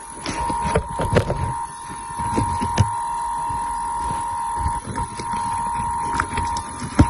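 Clicks and low knocks of a die-cast toy model being handled, over a steady high-pitched whine that drops out briefly a few times, with one sharp knock near the end.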